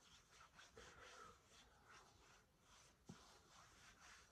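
Near silence: room tone with faint soft rustles and one small click about three seconds in.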